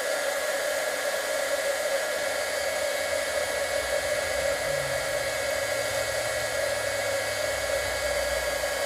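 Embossing heat gun blowing hot air steadily, an even whooshing hiss with a faint steady whine, melting gold embossing powder on a stamped paper piece.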